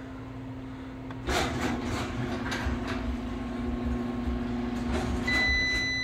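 A 1/2 hp garage door opener, running on an APC Back-UPS 900's inverter, starts about a second in and drives the door closed with a steady motor hum and rumble. Near the end the UPS starts a steady high-pitched alarm tone, the sign that it has gone into its fault mode under the opener's load.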